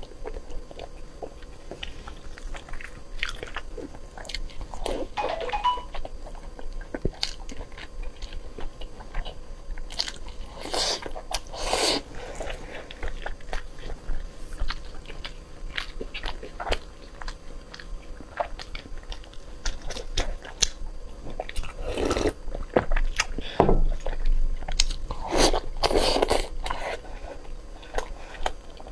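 Close-miked eating sounds: a person biting and chewing soft braised pork belly, with many small wet mouth clicks and a few louder bursts of mouth noise about a third of the way in and again near the end.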